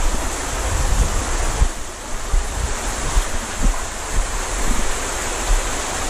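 Shallow rocky stream rushing and splashing over stones, a steady rushing noise, with wind buffeting the microphone in uneven low rumbles.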